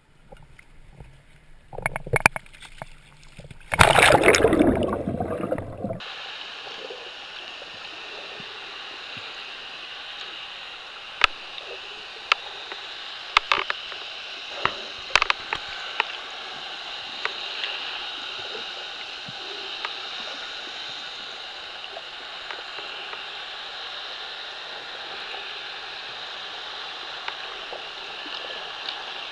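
Water splashing for the first few seconds, loudest about four to six seconds in. Then a steady muffled underwater hiss with scattered sharp clicks, heard through a camera held underwater.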